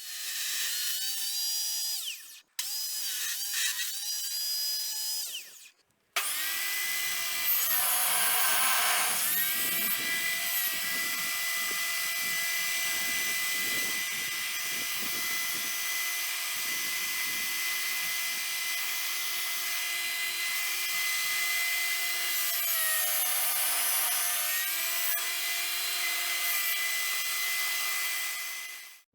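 Triton table saw's motor running with a steady high whine. Its pitch sags briefly a few times as it is loaded, typical of the blade cutting through wood, and the sound breaks off twice in the first six seconds.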